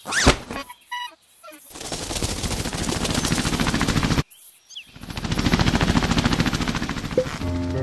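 Fluttering of a swallowtail butterfly's wings, done as a sound effect: two runs of very fast, rattling wingbeats that grow louder and stop abruptly, separated by a short pause. A brief sweep and a few short tones come before them.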